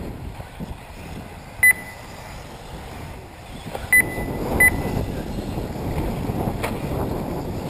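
Three short, high-pitched electronic beeps at irregular times, the second one longer, typical of an RC race lap-timing system registering cars crossing the line. Wind noise on the microphone runs underneath.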